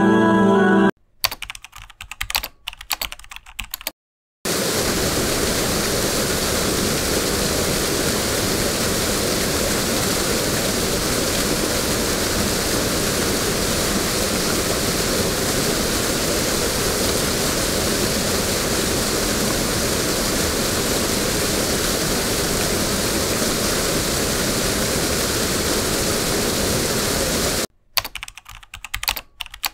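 Keyboard-typing clicks for a few seconds, then a steady, even rush of a whitewater river over rocks, then keyboard-typing clicks again near the end.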